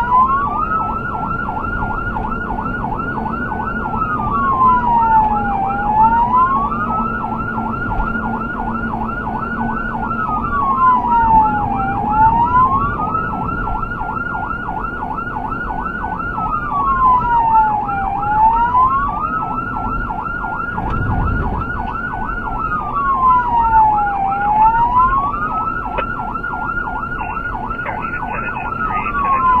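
Emergency vehicle siren on a wail, its pitch rising and falling slowly about every six seconds, with a fast pulsing laid over the tone. A steady rumble of the moving vehicle runs underneath.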